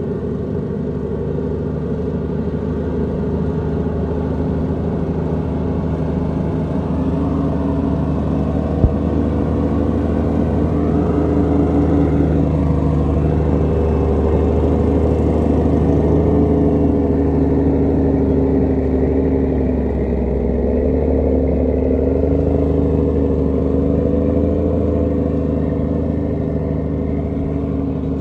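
Heavy diesel semi-truck engine labouring at low revs, steady and loud, its pitch slowly rising and falling as the truck hauls a loaded trailer over rough dirt. A single sharp knock about nine seconds in.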